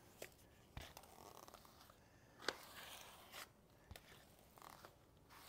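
Faint scraping of a rubber grout float working wet grout over mosaic tiles, with a few soft clicks and knocks, the sharpest about two and a half seconds in.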